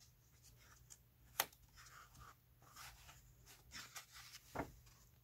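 Faint handling of a picture book's paper pages: soft rustles, with a light tap about a second and a half in and another near the end.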